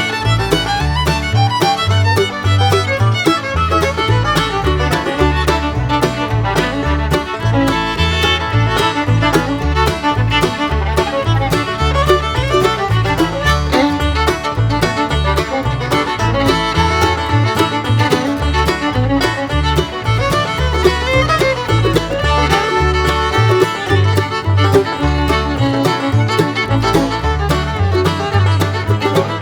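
Upbeat bluegrass-style background music with fiddle and banjo over a steady beat.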